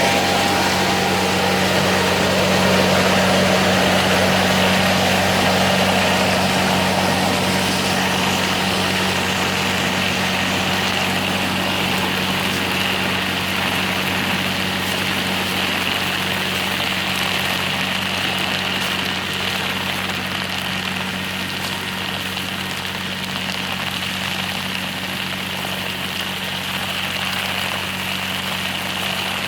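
Hazelnut harvesting machine and its engine running steadily: an even engine hum with a broad hiss of machinery on top, growing slightly quieter over the stretch.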